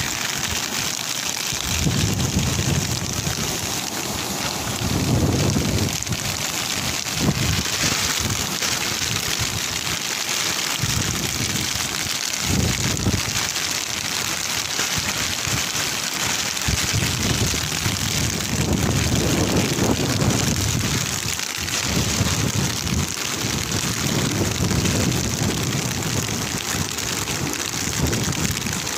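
Steady rain during a storm, with gusts of wind buffeting the microphone that come and go every few seconds.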